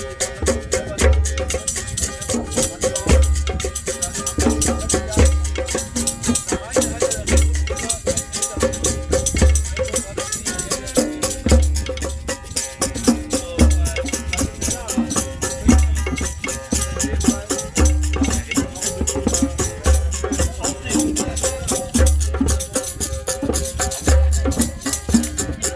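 Music with percussion: a low drum beat repeating in a steady pattern under dense, quick clicking hits.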